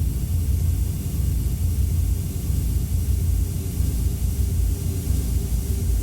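Synthesized ambient drone sound effect: a deep, steady low rumble under a layer of hiss, with a faint steady hum coming in about four seconds in.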